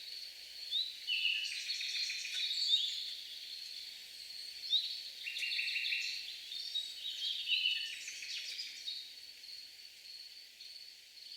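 Several songbirds singing together: many short chirps, trills and quick rising notes overlapping, over a steady high thin tone.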